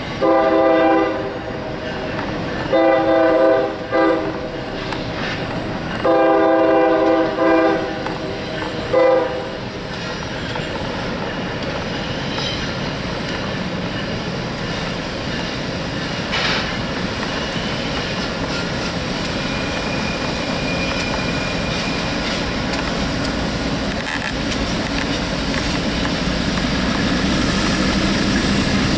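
Diesel locomotive air horn sounding a chord in a series of long and short blasts over the first nine seconds. After that, the rumble of the lead diesel locomotives and the train on the rails grows steadily louder as they approach.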